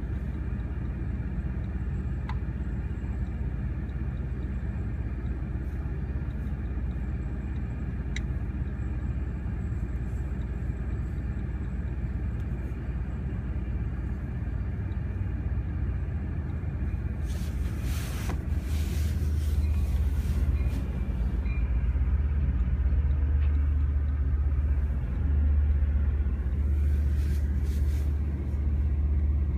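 Deep, steady diesel rumble of a Long Island Rail Road train, a DE30AC diesel-electric locomotive with C-3 bilevel coaches, heard muffled from inside a car. The rumble grows louder a little past halfway as the train moves in close.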